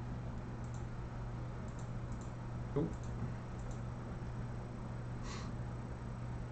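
A few faint computer mouse clicks over a steady low electrical hum, with a brief hiss about five seconds in.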